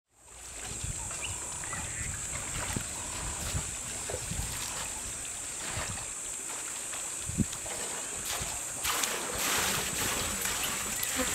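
Ambience of African elephants drinking at a waterhole: water sloshing and splashing, scattered low thuds, over a steady high-pitched drone. A louder splashing stretch comes about two-thirds of the way in.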